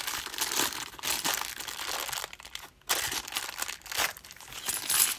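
Clear plastic bank coin bag crinkling as it is handled and torn open, with a brief pause just before the middle.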